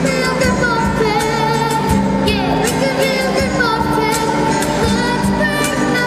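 Live children's band: a girl sings the lead into a microphone over acoustic and electric guitars, with a box drum keeping a steady beat.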